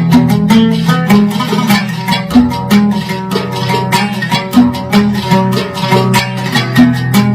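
A plucked string instrument plays a quick, rhythmic instrumental passage of a traditional Yemeni song, with rapid picked notes over steady low tones.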